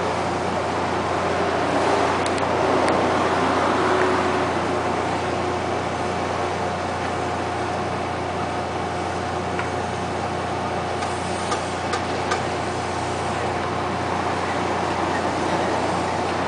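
Steady drone of machinery aboard a bottom-trawl fishing boat: a low hum with a constant tone above it. A few light clicks and knocks come about eleven to twelve seconds in.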